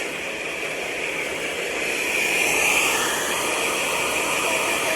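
Hair dryer blowing steadily, a continuous whooshing hiss.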